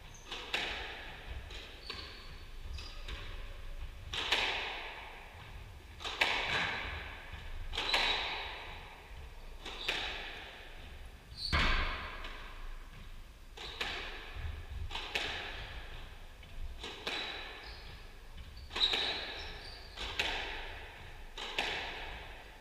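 Squash rally: the ball cracks off the rackets and the walls about every one to two seconds, echoing round the court, with short high squeaks of shoes on the wooden floor.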